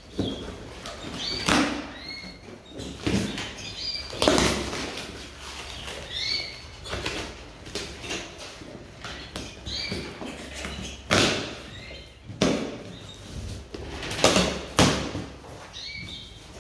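A taped cardboard box being slit and torn open with a knife: irregular scraping strokes and rips of tape and cardboard, with several louder rips in the second half. Canaries chirp faintly in the background.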